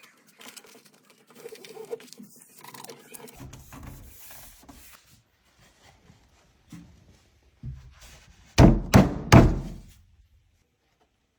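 Faint scraping and small knocks, then three heavy thuds in quick succession about eight and a half seconds in.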